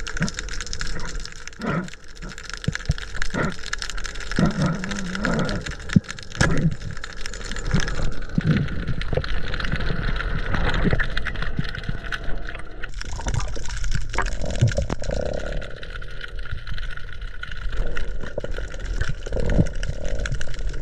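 Water noise heard underwater: a steady rush with gurgling, broken by scattered clicks and low knocks.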